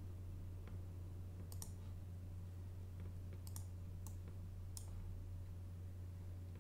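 Computer mouse buttons clicking several times at irregular intervals over a steady low hum.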